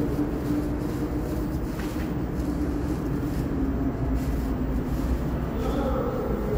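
R68A subway train standing at the station: a steady low rumble and hum, with a tone that slowly falls over the first few seconds and a few higher tones coming in near the end.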